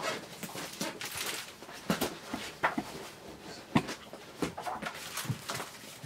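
A pet dog making short, scattered noises, roughly one every second.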